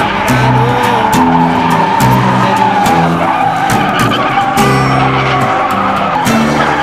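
Instrumental backing of a song with stepping bass notes, mixed with a sustained, wavering tire squeal like that of a truck doing a burnout.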